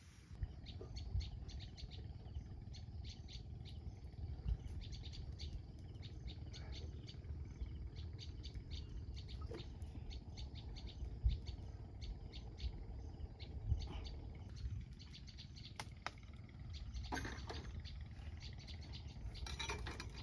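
Birds chirping in many short, quick calls, thickest near the end, over a steady low rumble.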